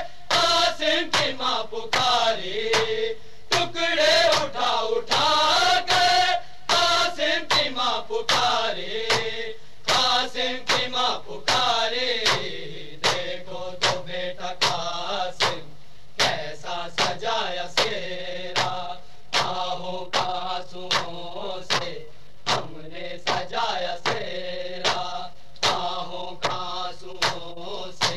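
Men's voices singing an Urdu noha (Shia lament) as a group chant. A steady beat of sharp slaps runs under the singing, the hand-on-chest beating of matam that keeps the noha's rhythm.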